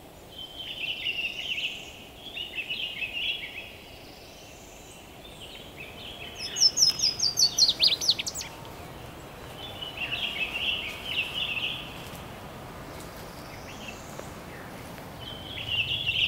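Wild songbirds singing. One bird repeats a short song phrase four times, and another gives a louder run of quick high notes, each falling in pitch, about seven seconds in.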